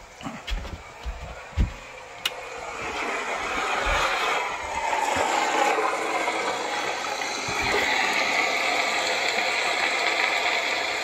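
A few knocks and a click of handling noise, then a steady rushing car engine and road noise from a film soundtrack playing through a portable Sony DVD player's small speaker.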